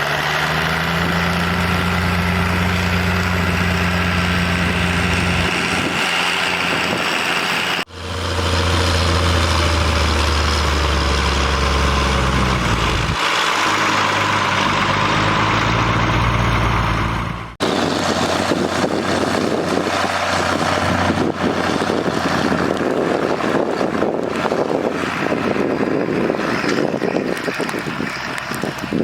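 Farm tractor diesel engines running steadily while ploughing. The sound changes abruptly twice, about 8 and 17 seconds in, and the last part is rougher and noisier, with less of a clear engine note.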